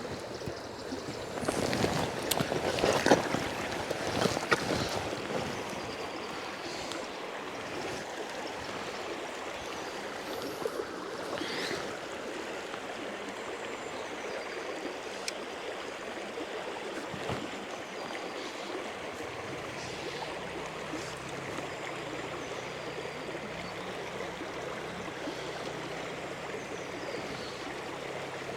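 Steady rush of a shallow, fast-flowing river. In the first few seconds there is louder, irregular splashing and knocking as someone wades into the water.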